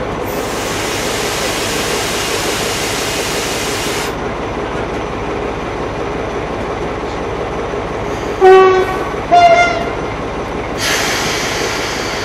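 Class 14 diesel-hydraulic locomotive idling with a steady hum, a sharp hiss for about four seconds at the start and again near the end, then two short blasts on its two-tone horn about a second in between, low note then high note, the loudest sounds here.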